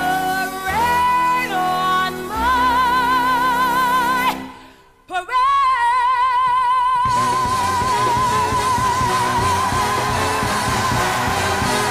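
A woman belting a show tune over musical accompaniment: a few phrases with wide vibrato, a sudden break about four and a half seconds in, then one long high note held with vibrato while the accompaniment grows dense beneath it.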